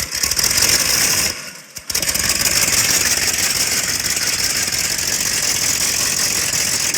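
Loud engine running with a rattle, dropping out briefly about a second in and then going on steadily.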